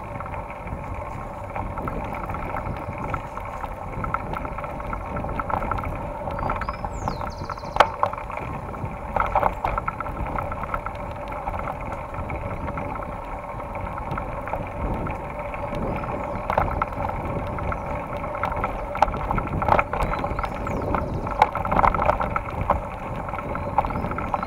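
Mountain bike riding along a dirt forest trail, heard from a camera on the bike: a steady rush of tyre and wind noise, with knocks and rattles as the bike goes over bumps.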